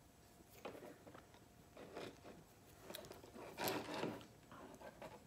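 Close-up handling of monofilament fishing line and a barrel swivel while a trilene knot is tied: faint scattered clicks, rustles and scrapes, with a louder cluster of rustling about three and a half seconds in.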